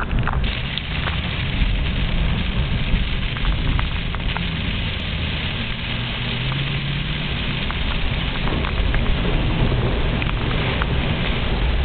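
Heavy rain pelting a car's roof and windshield, heard from inside the cabin as a dense, steady hiss with scattered small ticks of drops, over a constant low rumble.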